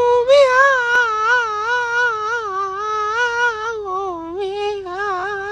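A cat's long, drawn-out yowl, one unbroken cry whose pitch wavers up and down and slowly sinks.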